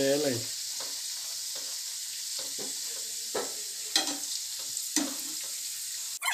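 Sha bhaklep (Tibetan meat pies) deep-frying in hot oil in a pan: a steady sizzle, with a few clicks and taps of a metal skimmer against the pan.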